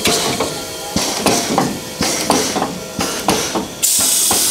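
Class 52 steam locomotive 52 7596 working: a run of sharp, regular knocking beats, about three a second. A loud hiss of steam sets in near the end.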